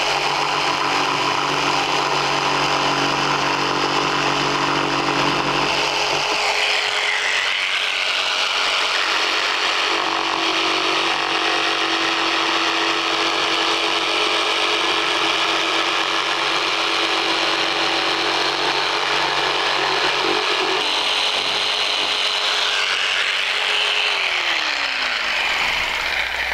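Festool Trion jigsaw with a Collins coping foot running and sawing a cope into the end of a piece of baseboard, a steady motor hum under the cutting noise. Near the end a motor winds down, its pitch falling as it stops.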